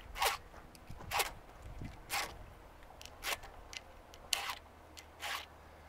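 Round file rasping across a chainsaw chain's cutter tooth while sharpening, in short forward strokes about once a second, six strokes in all.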